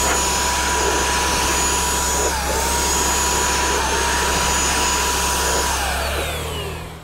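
Handheld electric paint sprayer's motor running with a loud steady whine. The pitch dips briefly twice, then falls away as the sprayer is switched off and winds down at the end.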